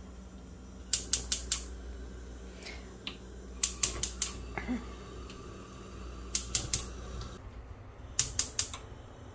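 Fischer four-burner gas cooktop's spark igniter clicking in four quick trains of four or five clicks each as the burners are turned on one after another and light.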